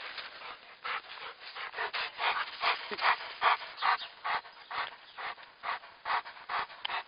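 A dog panting close to the microphone, a quick steady run of breaths at about three a second.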